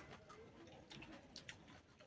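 Near silence with a few faint, sharp clicks.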